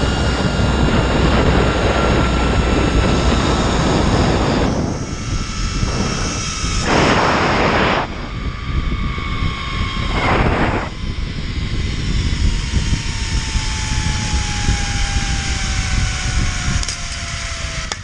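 Zip-line trolley running along the steel cable with wind rushing over the microphone: a thin whine from the pulleys that falls steadily in pitch as the ride slows toward the landing. Two short, louder rushes of noise come about seven and ten seconds in.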